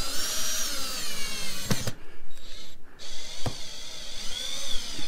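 Cordless drill driving self-tapping screws through a plastic marker light housing into a camper's sidewall. The motor whines in two runs with a short pause between them, and there are sharp clicks.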